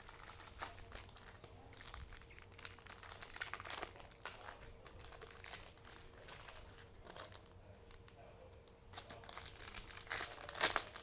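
Foil booster-pack wrappers crinkling as they are handled and opened, in irregular rustling bursts that are busiest near the end.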